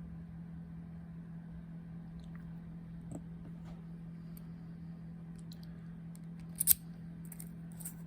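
Brass key working in a Brinks deadbolt cylinder: light metallic clicks and scrapes that grow more frequent, with a sharp double click about two-thirds of the way in, over a steady low hum.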